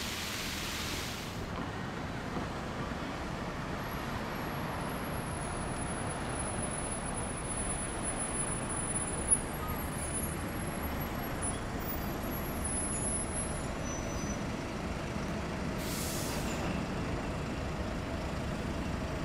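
Steady city street traffic noise from passing road vehicles such as buses and trucks. There is a short high hiss near the start and again about sixteen seconds in, and a faint high whine in between.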